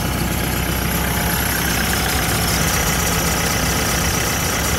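The TYM 654 tractor's Deutz TCD2.9L4 four-cylinder turbo-diesel idling steadily on fresh oil, run up after the oil change to check for leaks.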